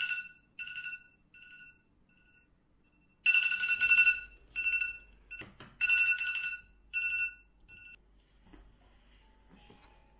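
Smartphone beeping an electronic two-tone alert in repeated bursts, fading and swelling, for about eight seconds. There is a single knock about five and a half seconds in.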